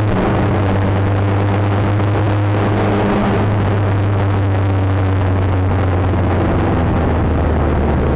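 Car engine running at a steady speed, its hum holding one pitch and dropping lower near the end.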